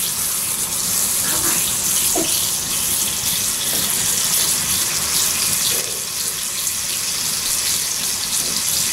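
Slices of salt pork sizzling steadily in a pan over a wood fire, the fat frying with a continuous hiss.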